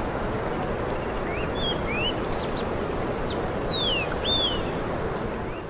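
Birds chirping: a handful of short calls that rise and fall in pitch, over a steady rushing outdoor noise.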